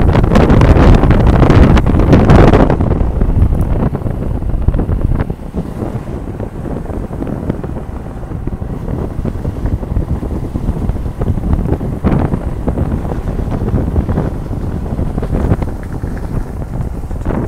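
Wind buffeting the microphone: heavy gusts for the first couple of seconds, then easing to a steadier rumble with a few smaller gusts.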